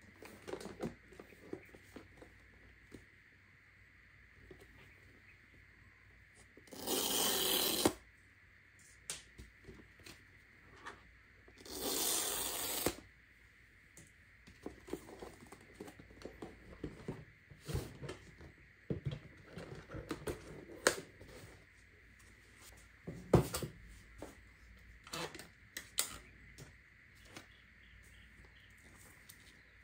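Apple iPad Pro's cardboard box and paper wrapping being handled and opened by hand. There are two loud papery rasps about a second long each, near a quarter and near the middle, and light taps, clicks and rustles of the lid and the paper-wrapped iPad throughout.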